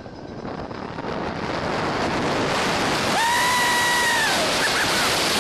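Rushing wind on the microphone of a rider on a suspended looping roller coaster, swelling over the first couple of seconds as the train gains speed and then staying loud. A held high-pitched tone sounds about three seconds in for a second or so.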